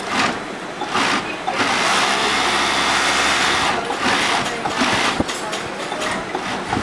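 Industrial multi-needle cylinder-bed sewing machine stitching knit polo-shirt fabric. It runs in short bursts, with one longer steady run of about two seconds in the middle, its motor humming under the needle clatter.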